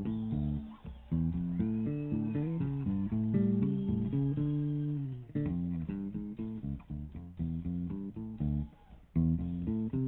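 Live rock band playing an instrumental passage led by electric bass guitar, its low melodic notes sliding up and down in places, with drums behind.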